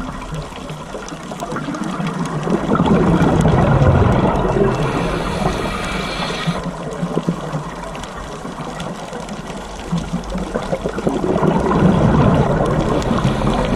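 Scuba diver's regulator bubbles underwater: two long surges of exhaled bubbles several seconds apart, with a hiss between them that cuts off suddenly.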